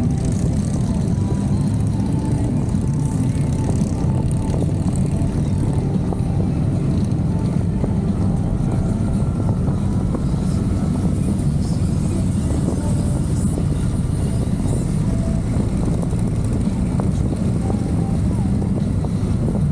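Motorcycle engines running in a steady low rumble, without pauses.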